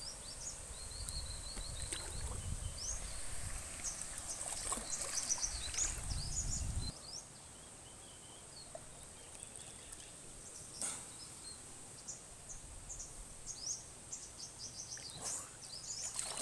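Outdoor rural ambience: small birds chirping over a steady high-pitched hum. A low rumble underneath for the first several seconds cuts off suddenly about seven seconds in, and a few brief clicks follow.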